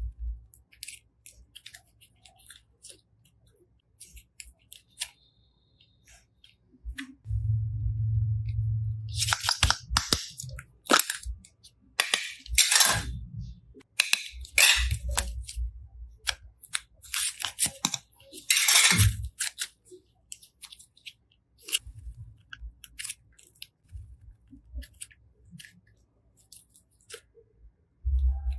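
Slime being squished and pressed by hand: irregular sticky clicks and crackles, with a cluster of louder crackling pops in the middle and some dull low thumps.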